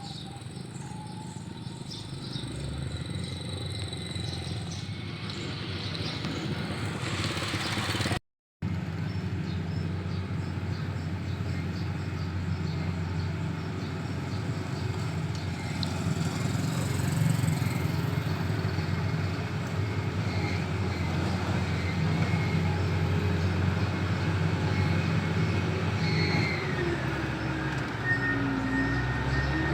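Engines of heavy road-works machinery running steadily, with a brief drop-out about eight seconds in and some shifts in pitch near the end.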